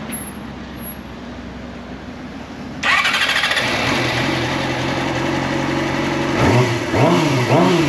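Sport motorcycle engine started with the electric starter about three seconds in, catching and idling steadily, then revved up and down a few times near the end. It is the first start after diesel, put in the tank by mistake, was pumped out and replaced with petrol.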